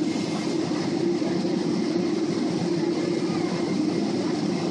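Steady low cabin rumble inside a Boeing 777-300 airliner moving slowly along the ground, from the jet engines and the rolling of the aircraft.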